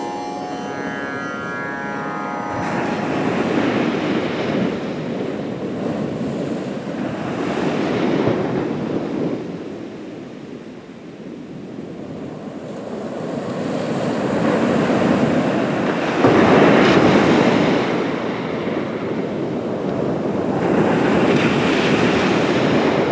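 Ocean surf breaking on a sandy beach, the wash swelling and ebbing every few seconds. The tail of plucked-string music fades out in the first two seconds or so.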